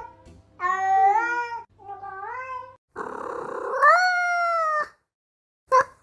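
Domestic cat meowing three times, each meow rising in pitch; the third begins rough and noisy, then is the longest and loudest. A brief, sharper call follows near the end.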